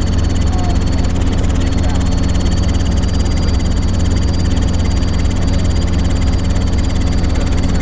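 Robinson R22 helicopter in cruising flight, heard inside the cabin: a steady, loud drone of engine and rotor with a deep hum, fast fine pulsing, and a thin high whine above it.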